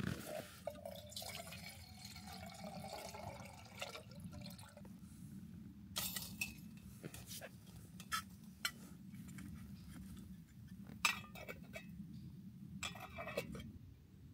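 Liquid pouring into a vessel for a few seconds, its pitch rising as it fills, followed by several separate light clinks and knocks.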